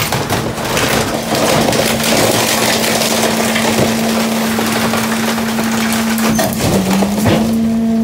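Garbage truck's hydraulic packer compacting trash in the hopper: a steady hydraulic whine under crackling and crunching as cardboard, plastic and a wooden frame are crushed. The whine dips lower briefly near the end and then comes back.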